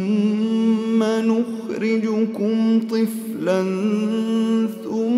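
Male voice reciting the Quran in melodic tajweed chant, unaccompanied, drawing out long held notes that step up and down in pitch, with brief breaks between phrases.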